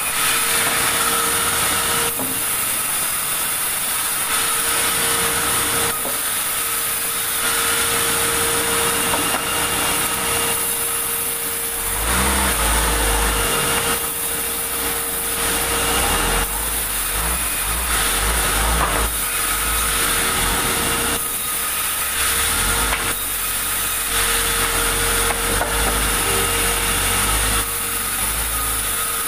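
Sawmill saw running and cutting through a large log: a loud, steady whine over dense sawing noise, joined about twelve seconds in by a deep, uneven rumble.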